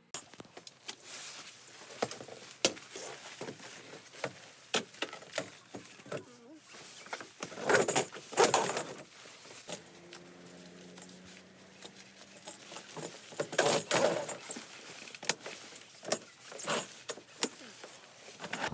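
Irregular clicks, knocks and rattles of objects being handled, over a rustling background, with a short steady low tone about ten seconds in.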